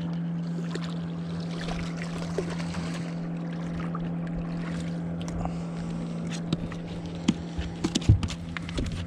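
A steady hum from the fishing boat over light wind noise. In the last few seconds come scattered knocks and clicks as the freshly landed walleye is handled in the boat.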